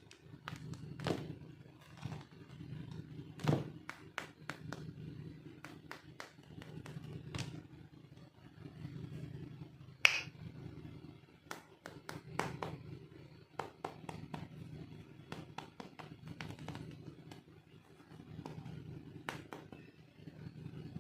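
Small plastic toy pieces being handled and set down: scattered light clicks and taps over a low steady hum, with one sharper click about ten seconds in.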